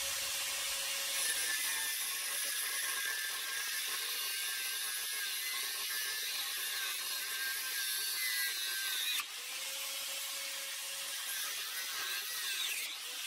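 Parkside PWS 125 E4 angle grinder cutting through a rusty steel bar with a thin cut-off disc: a steady, high-pitched grinding screech. It drops a little in loudness about nine seconds in, and near the end the motor begins to wind down.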